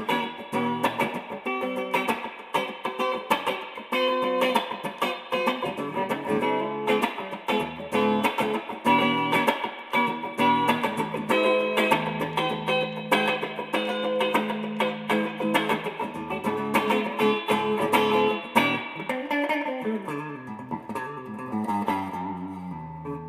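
Tokai Love Rock Les Paul-style electric guitar played solo: a run of quickly picked notes over held low notes. Near the end it bends or slides in pitch and gets quieter.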